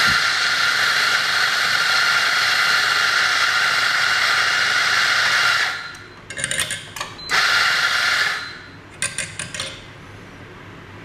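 Electric coffee grinder grinding an 18 g espresso dose into a portafilter: a steady whirring for about six seconds, then two brief bursts. A few light taps follow near the end.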